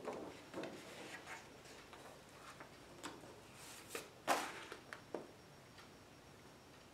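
Large sheets of chart paper being handled: laid down on a table and flipped over on an easel. Short rustles and light knocks come in a quick string, the loudest about four seconds in, and then stop.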